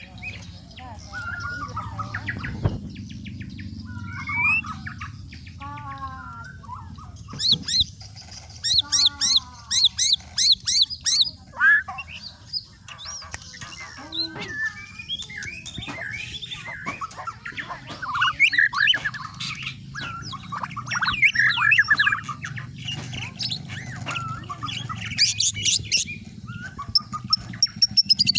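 A white-rumped shama of the Bornean race singing a long, varied song of whistles and chattering phrases, mixed with imitations of lovebird and canary calls. About a third of the way in it gives a fast run of rising high notes.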